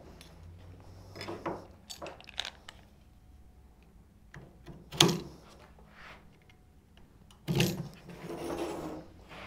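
Small metal clicks and knocks as a steel door hinge is handled on a door edge and scored around with a knife, with a sharper knock about five seconds in and another about seven and a half seconds in, followed by a short scratchy scraping.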